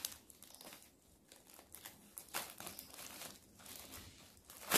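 Thin plastic packaging around a pack of yarn balls crinkling and rustling irregularly as the yarn is pulled out of it.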